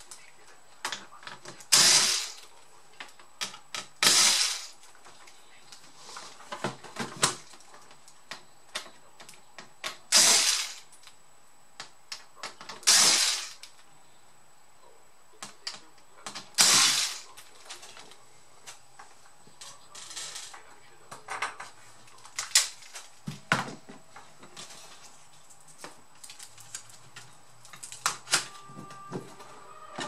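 Cordless electric screwdriver running in several short bursts of about half a second each, driving screws into a laptop's chassis, with small clicks and taps of screws, parts and tools being handled between the runs.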